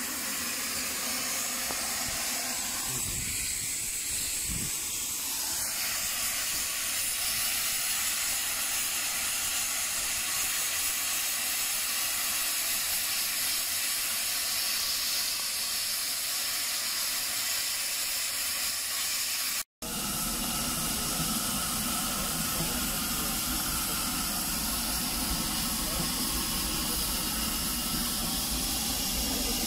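Narrow-gauge steam locomotive hissing steam steadily. It breaks off for an instant about two-thirds of the way in, then goes on with a deeper rumble underneath.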